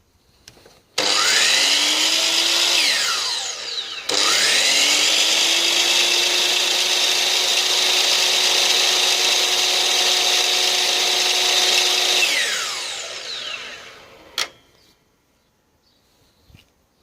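DeWalt DW780 sliding compound mitre saw motor switched on briefly and winding down, then started again and run at a steady high whine for about eight seconds before winding down. A single sharp click follows the second wind-down.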